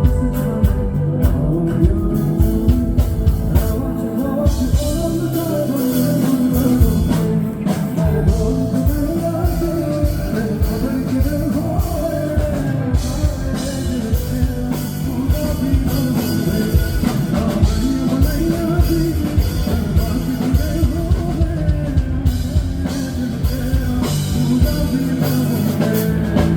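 Live rock band playing through a PA at a sound check: a singer's voice over a drum kit's steady beat and guitar.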